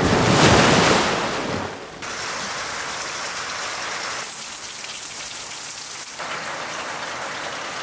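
A loud rush of noise for the first second or two, then steady rain falling, an even hiss without breaks.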